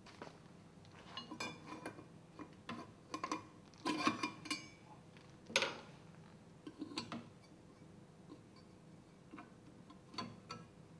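Irregular metallic clicks and light knocks from a Grundfos Unilift KP submersible pump being handled, its steel body turned on a wooden bench and its shaft end worked by hand. The strongest clinks come about four and five and a half seconds in.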